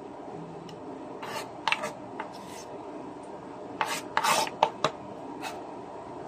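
Kitchen knife blade scraping minced garlic across a bamboo cutting board, in short rasping strokes: a few about a second in, then a louder quick cluster past the middle.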